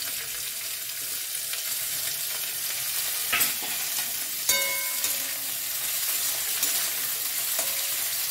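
Potato sticks and cauliflower florets sizzling steadily in hot oil in an aluminium kadai, with two sharp metal clinks a little past the middle, the second ringing briefly. Near the end a metal spatula stirs the vegetables.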